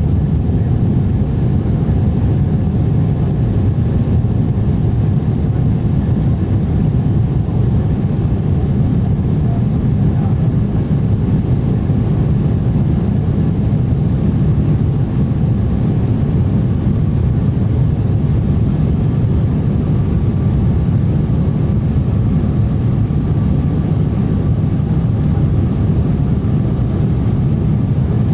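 Steady, unchanging low roar of a passenger airliner's engines and airflow, with faint steady tones above the rumble.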